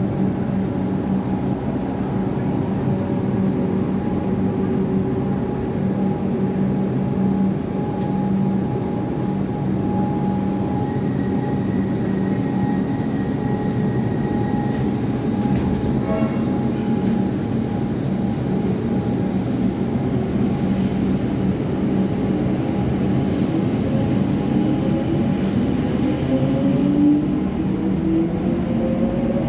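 Comeng electric suburban train standing at the platform with a steady hum, then pulling away near the end with a whine from its traction motors that rises in pitch as it picks up speed.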